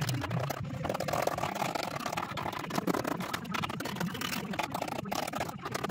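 Hand scraper scraping and clicking against the bare steel floor pan of a van, working at a rusty patch, in quick irregular strokes.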